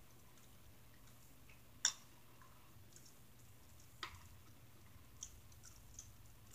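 A person eating a chicken wing: quiet chewing with sharp wet mouth clicks, the loudest about two seconds in, another at about four seconds, and two fainter ones near the end.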